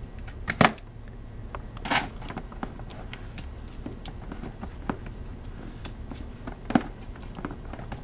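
Hands handling the stripped end of a shielded Cat6 cable and untwisting its wire pairs: scattered small ticks and rustles, with two sharp clicks, about half a second in and near the end, and a brief scrape about two seconds in.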